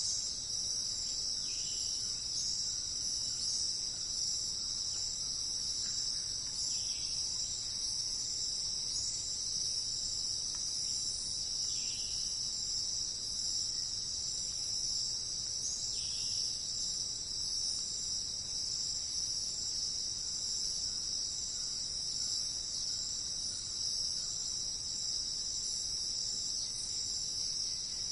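Steady, unbroken high-pitched insect chorus of crickets, with a few faint short notes every few seconds beneath it.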